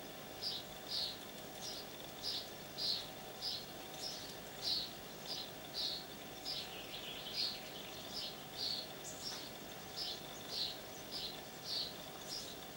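Short high chirps repeating steadily, nearly two a second, over a faint steady hiss.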